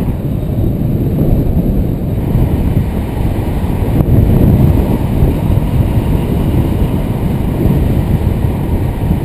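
Wind rushing over the camera's microphone in paraglider flight: a loud, steady low rumble that rises and falls slightly.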